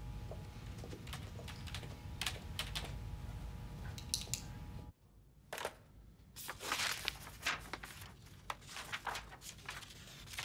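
Office room tone with a steady low hum and scattered computer-keyboard clicks. About five seconds in, the hum drops away and a sheet of paper rustles and crinkles in short, irregular bursts as it is handled.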